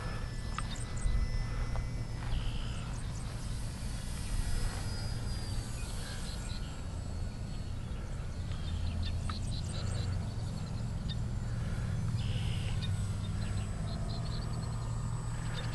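A steady low rumble, with birds chirping in short quick runs every few seconds. Under it is the faint whine of an electric RC plane's brushless motor and propeller, a 400-size AXi with a 9x6 slow-fly prop, slowly changing pitch as the biplane flies.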